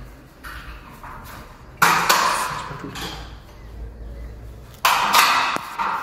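Plastic parts of a refrigerator being pulled out and handled during cleaning: two sudden clattering scrapes, about two seconds and five seconds in, each fading away over about a second.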